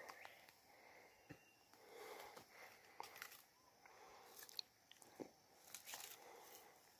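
Someone chewing fresh sugarcane: faint, irregular crunching bites.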